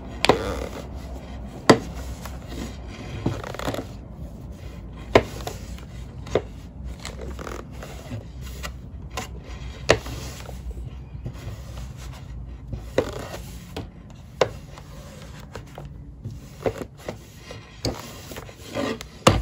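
Household steam iron being pushed over a cloth face mask on a hard board, a steady rubbing, with sharp knocks now and then as the iron is set down or bumps the board.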